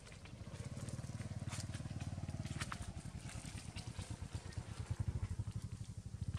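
Low, pulsing engine rumble of a motor vehicle passing nearby, swelling about a second in and loudest near the end, with a few faint clicks over it.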